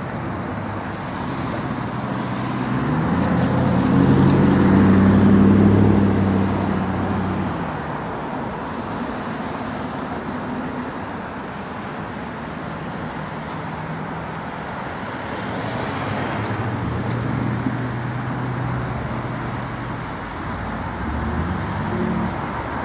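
Steady road traffic on a busy city street. A single vehicle's engine passes close, loudest about four to six seconds in, and another vehicle passes more quietly later.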